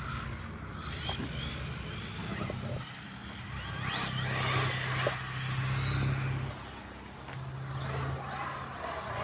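Arma Mojave EXB RC truck driving on loose gravel: its electric motor whines up and down with the throttle, and a steady low hum and a gritty noise of tyres on gravel run underneath.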